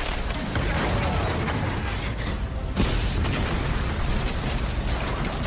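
Car-crash sound effect of an SUV tumbling down a dirt slope: a steady, loud rumbling and clattering noise, with a sharp knock a little past the middle.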